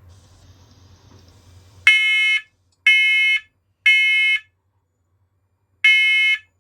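First Alert Onelink smoke alarm sounding its test alarm: loud beeps in the three-beep evacuation pattern, three beeps about a second apart, a pause, then the pattern starting again. The alarm starts about two seconds in.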